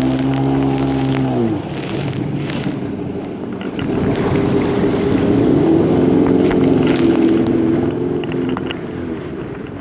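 Yamaha jet ski engine running under way. It eases off about a second and a half in, picks up again around four seconds in, and falls back near the end, over a steady rush of water and wind.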